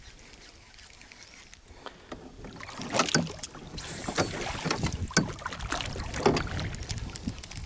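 Water splashing beside a plastic fishing kayak, with a string of sharp knocks and clicks on and around the hull starting about three seconds in, and some wind on the microphone.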